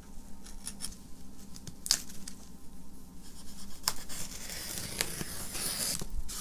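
Packing tape on a cardboard box being slit and torn open. There are a few sharp clicks, then a longer scratchy tearing sound about two-thirds of the way through.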